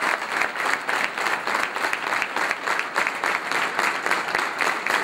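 A crowd applauding: many hands clapping together in a dense, steady patter.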